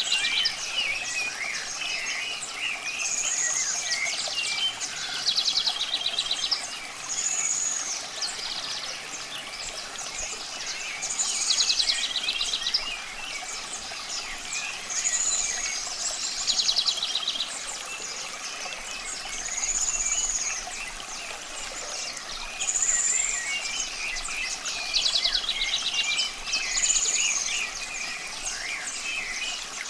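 Wild birds singing: one bird repeats a phrase about every four seconds, a high whistled note followed by a rapid trill, while other birds chirp, over a steady hiss of running water.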